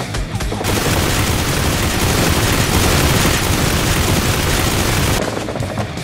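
Loud battle sound effects: rapid gunfire-like cracks, then a dense roar of noise that starts suddenly about half a second in and cuts off abruptly about a second before the end, with the cracks resuming, over action music.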